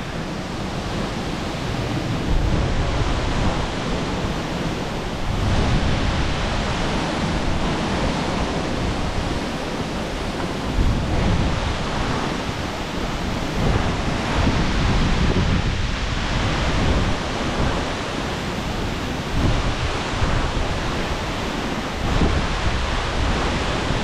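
A tall waterfall, about 60 metres high, crashing into its plunge pool: a steady, even rush of falling water, with uneven low gusts of wind and spray buffeting the microphone.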